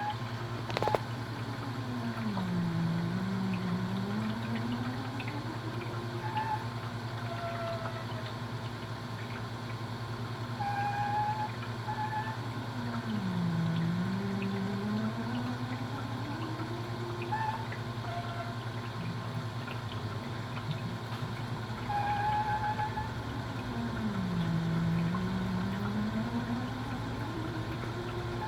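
Opal nugget ice maker running with a steady low hum. About every eleven seconds (three times) a tone glides down and back up over a few seconds, with short higher chirps around it. This is the unexplained noise its owner is asking about.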